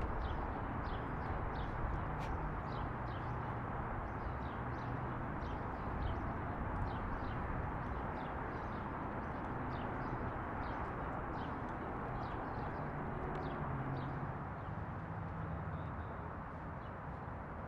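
Outdoor ambience: small birds chirping over and over in short, high, falling notes, about one or two a second, over a steady background hiss and low hum.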